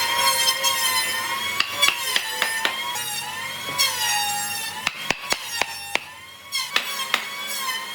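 A power tool's electric motor whines at a high pitch that sags and recovers as it works, with sharp knocks and clicks scattered throughout. The whine drops away briefly about six seconds in, then picks up again.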